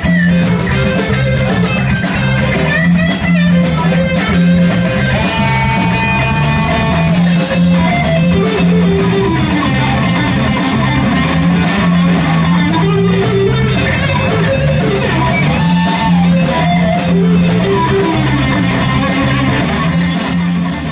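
Live roots-and-blues band playing electric guitar, bass guitar and drums with a steady beat; the guitar line bends up and down in pitch.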